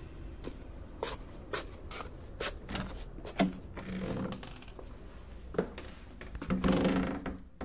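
Irregular knocks, clicks and scrapes of someone walking in garden clogs and stepping indoors, with a longer rustling scrape near the end.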